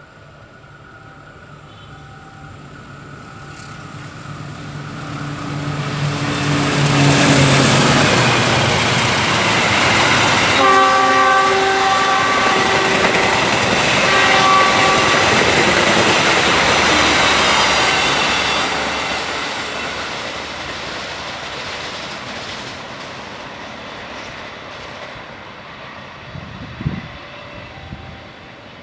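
A train passing: its rumble builds as it approaches, stays loud for about ten seconds as the cars run by, then fades away. A multi-tone train horn sounds twice while it passes, and a short knock comes near the end.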